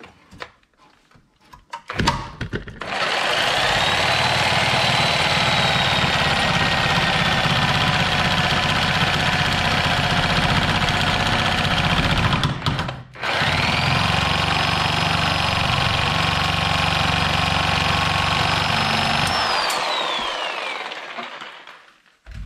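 Angle grinder cutting through a seized tie rod end: it runs with a steady whine for about ten seconds, stops briefly, runs again for about six seconds, then the whine falls away as the disc spins down.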